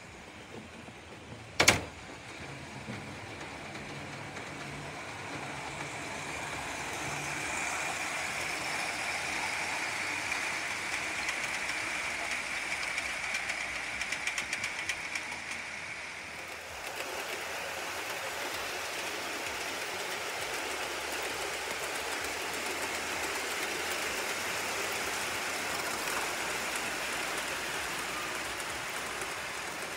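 O gauge model trains running on the elevated garden track: a steady rumble and hiss of wheels on rail. A single sharp click sounds about two seconds in.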